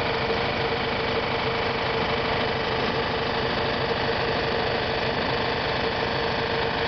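A motor running steadily, a constant drone with an even hum.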